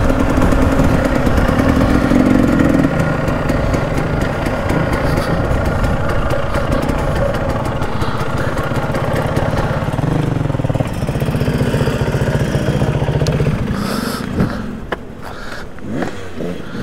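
KTM dirt bike engine running as the bike rides slowly over rough, rocky ground, its note dropping about fourteen seconds in as the bike comes to a stop, followed by a few clatters and scrapes.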